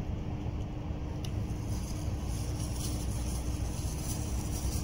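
Steady low background rumble with a faint steady hum through it, and a few faint light clicks.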